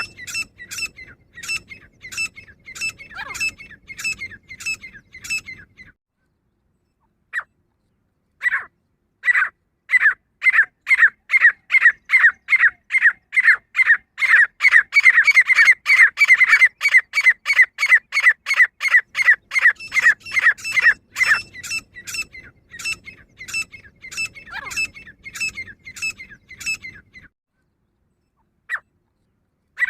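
Female grey francolin calling: long runs of sharp, quickly repeated notes, several a second, crowding closer and loudest midway. The calling breaks off for about two seconds after about six seconds and stops again near the end.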